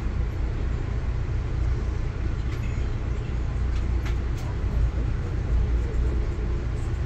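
Steady low rumble of an Amtrak Northeast Regional passenger train running at speed, heard from inside the coach, with a few light clicks in the middle.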